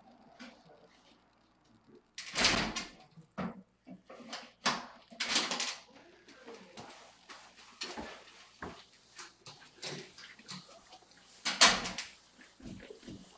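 Irregular bursts of rustling and knocks close to the microphone as a person moves about by the camera. The loudest bursts come about two and a half seconds in and near the end.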